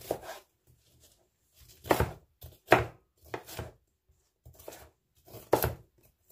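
Kitchen knife chopping green sweet pepper on a plastic cutting board, in separate strokes about a second apart, some louder than others.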